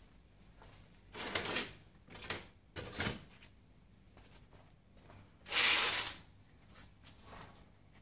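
Portable toilet privacy tent being handled and opened out: several short rustles and knocks, the loudest a broad swish about five and a half seconds in.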